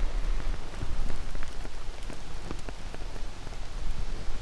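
Irregular crackling and rustling of dry bog grass and sphagnum moss close to the microphone, over a low rumble of wind on the microphone.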